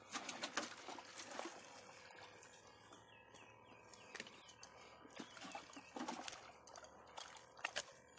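A hooked crappie splashing at the water's surface as it is reeled in, heard as scattered short splashes and clicks, loudest about half a second in and again near the end as the fish is lifted out.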